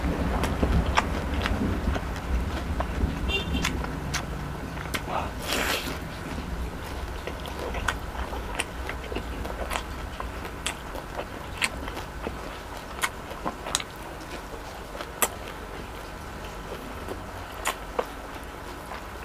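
Rolling thunder dying away over the first few seconds, over the steady hiss of rain. Close to the microphone, chewing of fried chicken with scattered sharp mouth clicks and a single crunch about five and a half seconds in.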